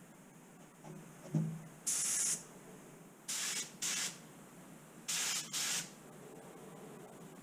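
Compressed-air spray gun spraying Cerakote coating in five short trigger pulls, each a hiss lasting under half a second. A brief knock comes about a second and a half in, before the first burst.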